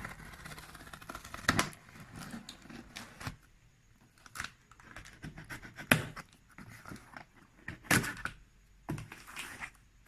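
A cardboard laptop box being opened and handled: scraping, rustling and tearing, broken by several sharp knocks.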